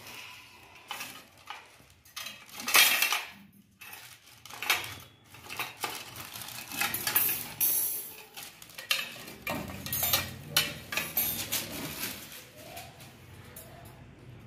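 Metal oven accessories, a wire grill rack and baking tray, clinking and clanking in a string of separate knocks as they are handled, with plastic wrapping crinkling for a moment about halfway through.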